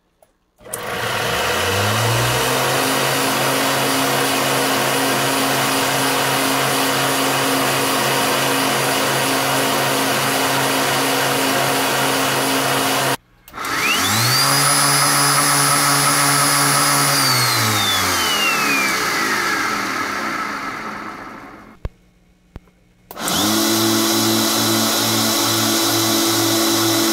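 Belt-driven 3D-printed supercharger on a test bench, spun at about 9,000 rpm by an electric motor for a boost-pressure test. It spins up to a steady hum with a high whine and runs there. Partway through it winds down with a falling pitch and stops, then after a short pause spins up and runs steady again.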